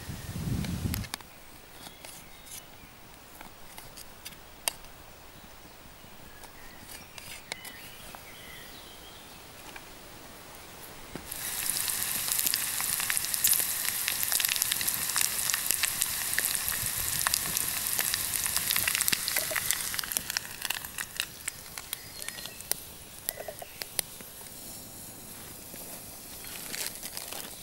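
Bacon sizzling in a mess-tin frying pan over a wood campfire: the loud, hissing fry comes in suddenly about a third of the way in and eases off after several seconds. Before and after it, the fire crackles with scattered small pops.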